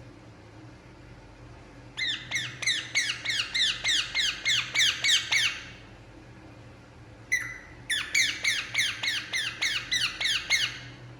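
Indian ringneck parakeet calling in two rapid series of repeated notes, about four a second, each note sliding down in pitch. The first series starts about two seconds in and lasts nearly four seconds; the second follows a short pause and opens with a longer note.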